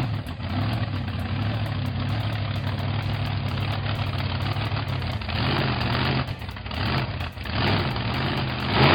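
Heavy vehicle engine idling steadily, then revving up in several short swells in the second half before cutting off abruptly.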